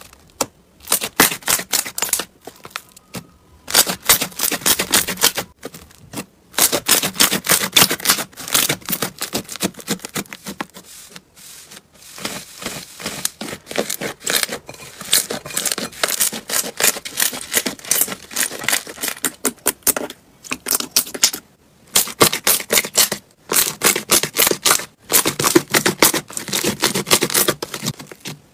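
Slime being squeezed and pressed by hand, making rapid crackling and popping clicks in bursts of a few seconds with brief pauses between them.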